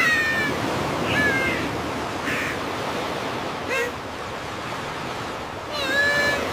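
Ocean surf washing steadily, with about five short bird cries over it; the last and longest comes near the end.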